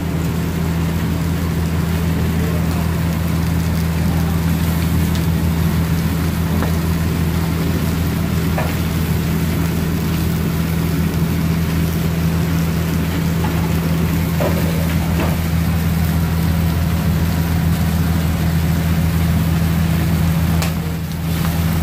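Fish sizzling on a hot grill tray: a continuous hiss with a few faint crackles, under a loud, steady, low mechanical hum that dominates.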